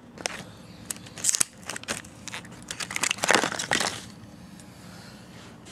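Stiff plastic blister packaging crackling and crinkling as it is pried open and a light bulb is worked out of it: a run of irregular crackles and clicks, loudest about three to four seconds in.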